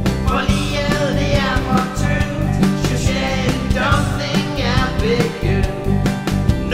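Rock-style song: a voice singing Danish lyrics over guitar and a steady beat, the singing coming in about half a second in.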